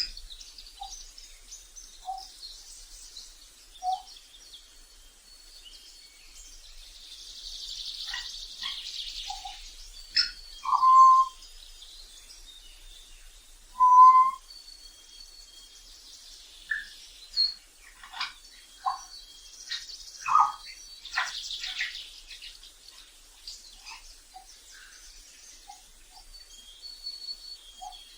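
African grey parrot giving scattered short whistles and chirps at irregular intervals, with two louder whistles about a third and halfway through and a couple of harsher, hissy squawks.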